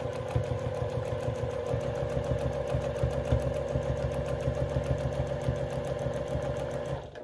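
Juki sewing machine stitching at speed during free-motion quilting, a fast even run of needle strokes that stops shortly before the end.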